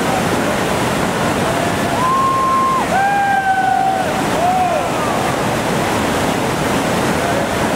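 Steady heavy rush of a big whitewater rapid running at a high release of about 4,700 cubic feet per second. From about two to five seconds in, a few long, high-pitched shouts from people rise over the water.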